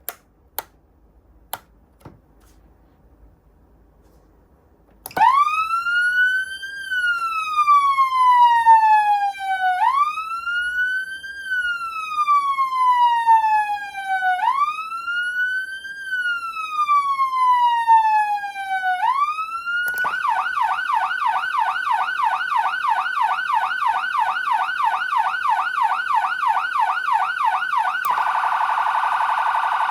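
Four sharp clicks, then a Whelen CenCom RED siren amplifier starts its wail about five seconds in: a high-pitched tone that rises quickly and slides slowly down, repeating about every four and a half seconds. About twenty seconds in it switches to a fast yelp, and near the end to an even faster warble, the Piercer tone.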